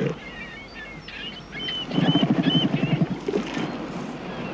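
A northern elephant seal gives a low, rapidly pulsed guttural call lasting about a second, starting about two seconds in. Birds chirp high above it throughout.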